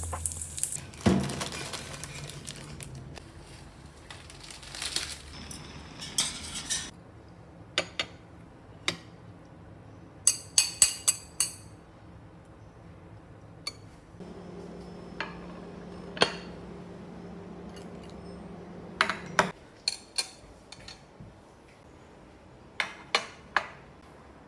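Fried egg sizzling in a frying pan at first, then chopsticks and utensils clinking against ceramic plates and bowls, with a quick run of about five clinks around the middle. A steady low hum runs for about five seconds in the second half.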